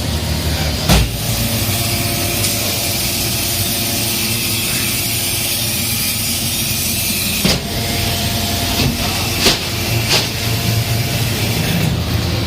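Corn silage bagging baler running: a steady motor hum with a hiss, broken by a few sharp knocks.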